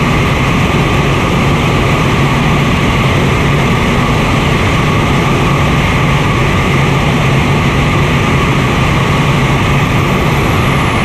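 BD-5J microjet's Microturbo TRS-18 turbojet running steadily in flight, heard from inside the cockpit as a constant, unchanging drone and rush.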